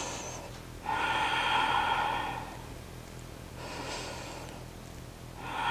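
A woman's slow, audible breathing while holding a plank: long, even breaths, the loudest about a second in, a fainter one near four seconds, and another starting near the end.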